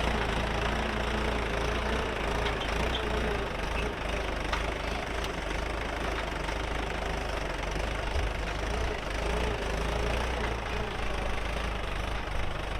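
Mahindra 575 DI tractor's diesel engine running steadily while the tractor is being driven in first gear.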